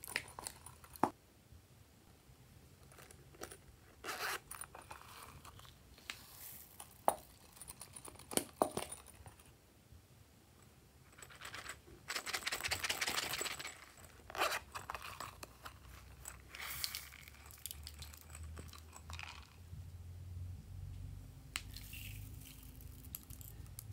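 Sequins, glitter and small plastic trinkets being shaken out of silicone coin purses onto slime in glass trays: scattered light clicks and rustling, with a longer rasping rustle about halfway through.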